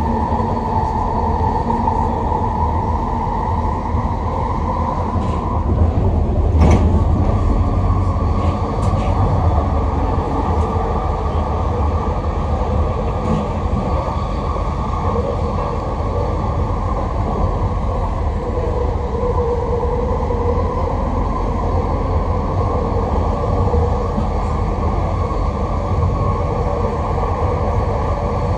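Vancouver SkyTrain linear-induction-motor train running along the guideway, heard from inside the front car: a steady rumble of the car in motion. A sharp clack about six and a half seconds in, with a few fainter clicks around it.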